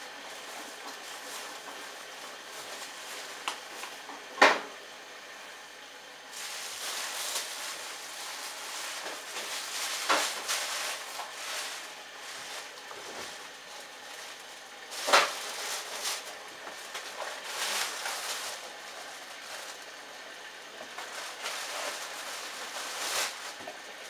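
Bosch Logixx WAS32461GB front-loading washing machine tumbling its load in the rinse of an easy-care cycle. Wet laundry swishes and sloshes in the turning drum, with two sharp knocks, about four seconds in and again about fifteen seconds in.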